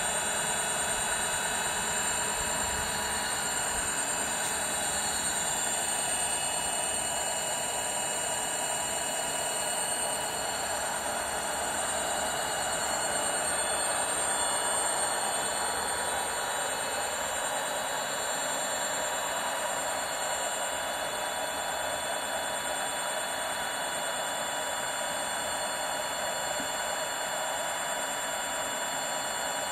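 Leafbike 48V 1500W direct-drive brushless rear hub motor spinning its bare 26-inch wheel with no load at about 71 km/h, its top speed. It makes a steady whir with several high, constant whining tones.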